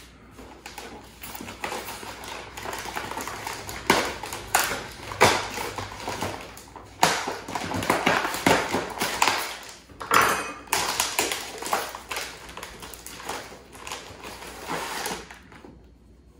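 Handling noise as a boxed porcelain bust is unpacked: cardboard box and packing material rustling and scraping, with an irregular run of knocks and clicks. It dies down near the end.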